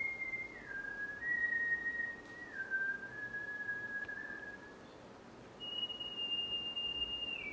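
A person whistling a slow tune: a few held notes that slide down in pitch, a long low note, a short pause, then a long high note that drops near the end.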